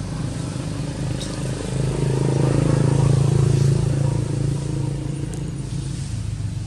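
A motor vehicle's engine going by, a steady low hum that grows louder to about three seconds in and then fades.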